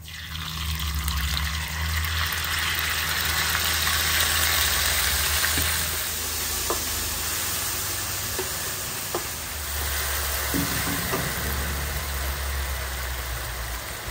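A stir-fry of eels sizzling loudly in hot oil. The sizzle sets in at once and holds steady, with a low rumble underneath and a few light clicks of the stirring utensil.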